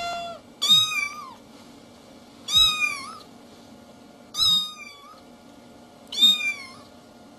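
Domestic cat meowing four times, about two seconds apart, each meow rising and then falling in pitch.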